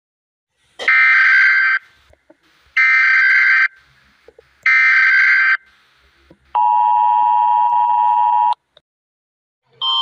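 US Emergency Alert System alert: three buzzy data bursts of the SAME header, a second each, followed by the steady two-tone attention signal for about two seconds. Just before the end a different alert tone begins, the Canadian Alert Ready signal.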